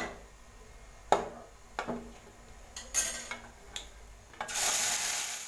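A few light knocks and scrapes on an aluminium kadai, with the tempering in hot oil faintly sizzling. About four and a half seconds in, a loud hiss of sizzling rises for about a second as cooked dal and tomato are poured into the hot oil.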